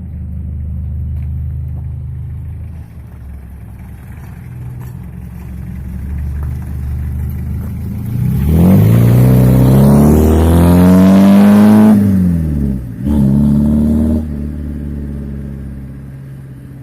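Mitsubishi L300 engine idling through a custom truck-style single-funnel exhaust, then revved hard about halfway through: the pitch climbs, holds for about three seconds and drops back, followed by a shorter second rev before it settles to idle again.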